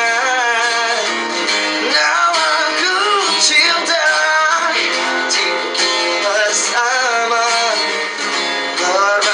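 Music: a song with guitar accompaniment and a melody line that bends and glides in pitch.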